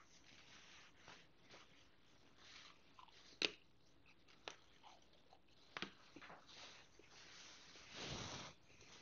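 Near silence with a few faint clicks, the sharpest about three and a half seconds in, and a soft rustle near the end: a priest handling the chalice and paten on a cloth-covered altar.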